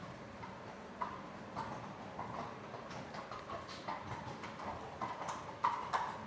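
Hoofbeats of a grey horse trotting on the sand footing of an indoor arena: a run of uneven soft strikes that grow louder near the end.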